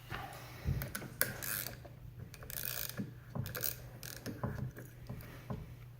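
Socket ratchet clicking in irregular strokes as a 7mm socket turns out the reverse-threaded center hub of an AC compressor pulley, with a few sharper metal knocks among the clicks.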